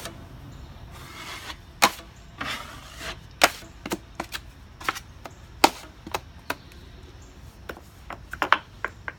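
A 10-inch drywall knife scraping hot mud across a wall patch in a few strokes, with sharp clicks and taps of the metal blade against the wall, coming in a quick cluster near the end.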